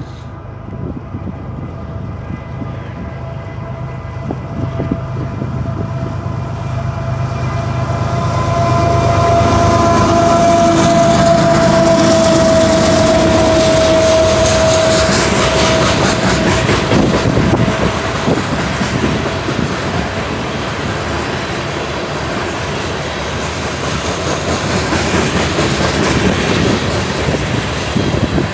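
BNSF diesel locomotives and a coal train passing close by: the locomotive engines rumble low on the approach, a locomotive horn sounds one long steady chord that swells to its loudest about halfway through and then fades, and the coal hopper cars' wheels clatter over the rail joints.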